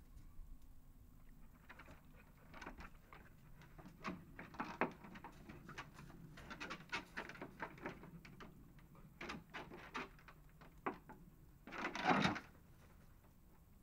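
A springer spaniel moving about on wooden decking and gravel: scattered light taps and scrabbles of its claws. Near the end comes one short, louder burst of noise.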